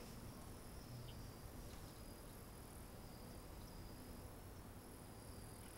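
Near silence: faint room tone with a thin, steady high chirring of crickets.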